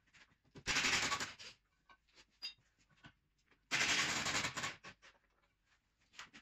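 Pneumatic impact wrench hammering in two bursts of about a second each, loosening the subframe bolts so the subframe can drop, with light clinks of tools and metal between the bursts.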